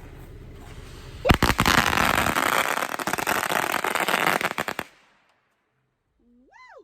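Consumer firework going off: a sharp crack about a second in, then dense crackling and hissing for about three and a half seconds that stops abruptly.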